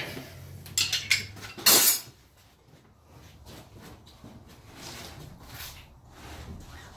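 Metal hand tools clinking, as with a wrench working on the car's steering tie rod: a few sharp clinks about a second in, a longer metallic clatter near two seconds, then quieter handling noise.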